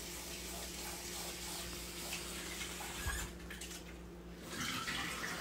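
Kitchen sink tap running water over raspberries being rinsed. The splashing drops off about three seconds in and comes back near the end.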